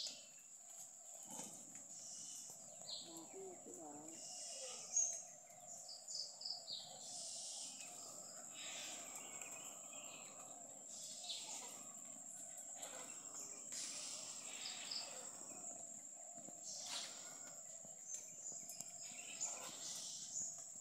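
Faint outdoor ambience of small water splashes and drips as hands work a fine fishing net in shallow pond water, with occasional bird calls and a steady high-pitched hum.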